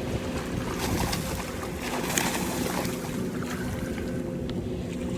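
Wind buffeting the microphone, a steady low rumble with a faint even drone underneath and a few light knocks.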